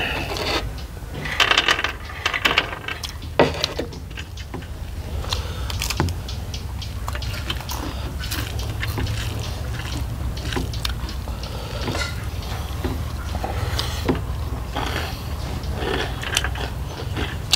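Close-up eating sounds of a meal of rice and curries: chewing and small clicks and scrapes of food and plate, irregular and strongest in the first few seconds, over a steady low hum.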